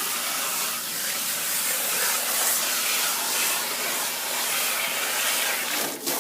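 Garden hose spraying water through an air-conditioner condenser coil in a steady hiss, rinsing out built-up dirt and debris; the spray breaks off briefly near the end.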